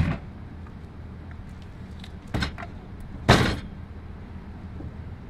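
Knocks and scrapes of a heavy pressure-treated wooden post being shifted on a plastic folding table: one at the start, another about two and a half seconds in, and the loudest and longest a little over three seconds in.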